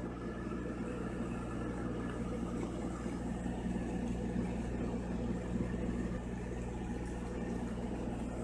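Engine aboard a fishing boat running steadily: a low, even drone that holds the same pitch throughout.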